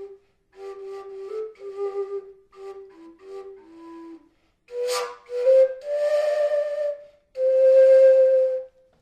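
Fujara, the long Slovak overtone flute, playing a folk tune: short phrases of quick notes, a brief pause, then a sharp breathy burst about five seconds in that opens into two long held notes.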